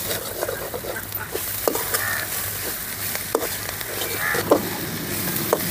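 A metal spoon stirring and scraping vegetables being sautéed in an aluminium pot, with a soft sizzle and a few sharp knocks; then a stone roller working dried red chillies on a stone grinding slab.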